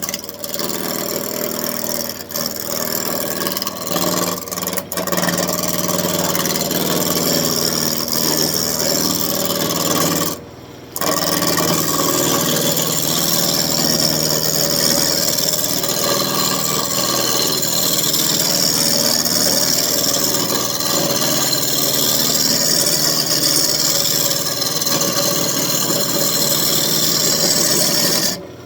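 Turning tool cutting a spinning elm spoon blank on a wood lathe, roughing it round: a loud, continuous scraping cut over the steady hum of the running lathe. It is choppy for the first few seconds and breaks off briefly about ten seconds in.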